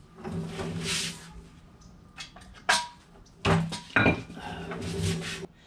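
Metal engine parts and hand tools clinking and clunking as they are handled and set down, with a couple of sharp clinks that ring briefly in the second half.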